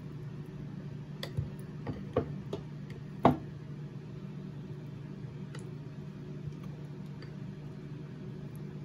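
A few scattered light taps and clicks of a utensil against a ceramic plate while cream is spread on a cake, the sharpest about three seconds in, over a steady low hum.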